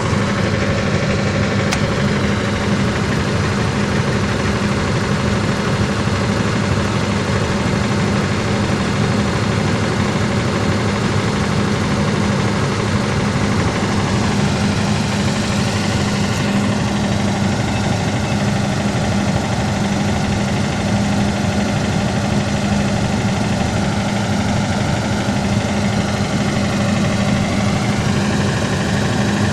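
An engine running steadily with a constant hum, and some higher tones joining about halfway through.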